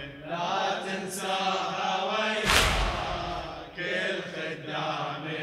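A congregation of male mourners chants a Shia latmiya refrain in unison, with one sharp collective chest-beat slap about two and a half seconds in.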